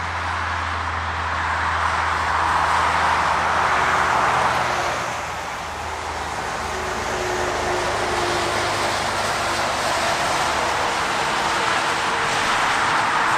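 Highway traffic: the steady rush of tyres from passing cars and trucks, swelling as vehicles go by about two to four seconds in and again near the end. A low engine hum underneath fades out about halfway through.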